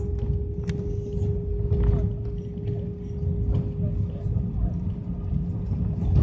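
Airliner cabin noise during the landing roll: a heavy low rumble from the wheels and engines on the runway under a steady hum, with scattered rattles of cabin fittings.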